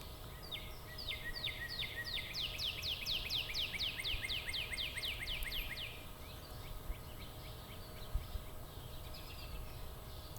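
A northern cardinal singing: a run of about twenty quick, downslurred whistles, about four a second, that grows louder and then stops about six seconds in. A low wind rumble runs underneath.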